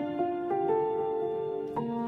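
Instrumental background music: a slow melody of held notes, with one long note held through the middle.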